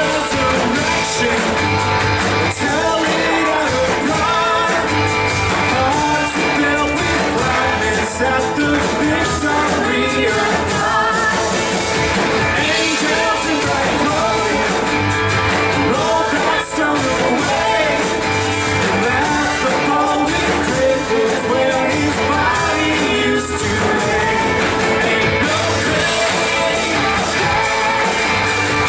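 Live worship band playing an upbeat rock-style song, with a lead singer and guitar.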